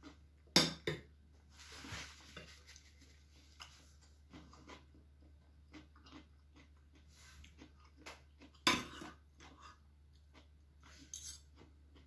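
Metal fork and spoon clinking and scraping against a ceramic bowl while eating. Two sharp clinks come about half a second in and another loud one about nine seconds in, with soft chewing and smaller taps between.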